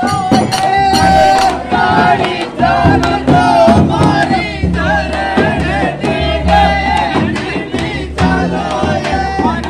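Men singing a Shekhawati Holi dhamal song as a group over the steady beat of chang frame drums, with crowd noise from the dancers.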